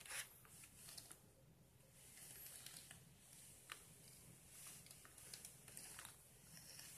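Near silence, with a few faint, scattered ticks and rustles from a plastic keyboard being handled.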